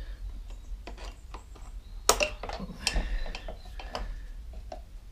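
Pliers clicking and scraping against a Homelite chainsaw's handle as they work a small grommet loose: scattered small clicks and knocks, the loudest about two seconds in.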